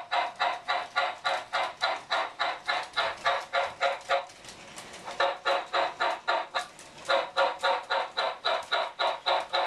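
Electronic steam chuffing from the Loco-Sound system of an MTH RailKing O scale Southern Pacific Daylight 4449 locomotive running on its track, an even beat of about four chuffs a second through the model's small speaker. The chuffing drops out for about a second near the middle, then picks up again.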